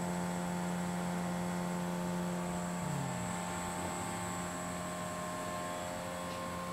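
Steady mechanical hum of a shop floor: a low drone with several thin steady tones above it over a faint hiss, the low tone briefly sliding down in pitch about three seconds in.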